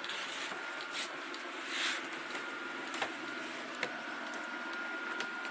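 A few light clicks of plastic clothes hangers knocking on a wardrobe rail, with a short rustle of clothing about two seconds in, over a steady background hiss.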